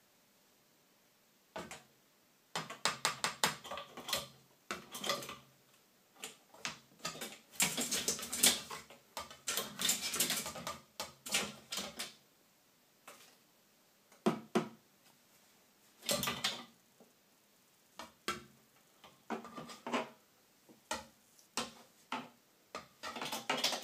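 A bird moving about inside a ceiling exhaust vent, scratching and tapping against the housing in irregular runs of rapid clicks with short pauses between.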